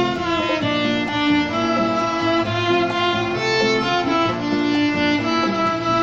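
Violin bowed in a continuous melody over an accompaniment that carries bass notes below the violin's range.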